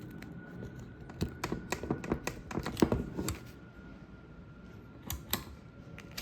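Quick clicks and knocks from handling and plugging in a light dimmer switch and its wiring. They come in a flurry in the first half and twice more near the end.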